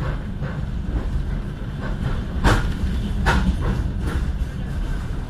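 Suburban electric train (elektrichka) rolling along the track: a steady low rumble with several sharp wheel clacks over rail joints, the loudest around the middle.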